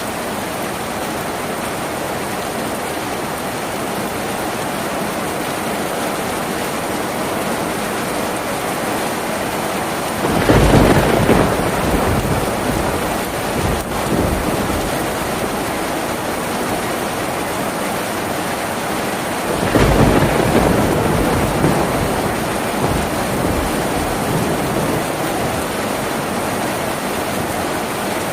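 Steady heavy rain drumming on a tin roof, with two rolls of thunder, about ten and twenty seconds in, each swelling up and dying away over a few seconds.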